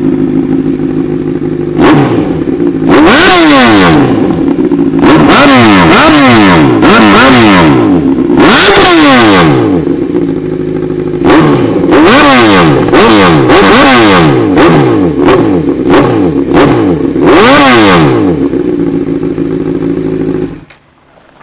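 Honda CBR1000RR superbike's inline-four engine, tuned with a Power Commander, idling loud through its exhaust, then blipped hard about a dozen times, each rev shooting up and falling back to idle, before the sound cuts off suddenly near the end.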